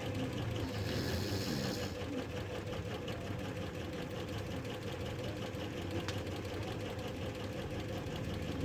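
A woman snoring: a steady, engine-like drone with a fine rapid flutter.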